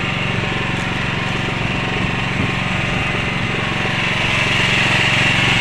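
A small engine running steadily at an even speed, with a steady hiss that grows a little louder near the end.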